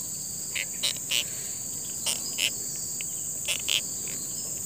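Steady high-pitched insect chorus, with about seven short scratchy sounds in three clusters (around the first second, a little after two seconds, and about three and a half seconds in), which are louder than the chorus.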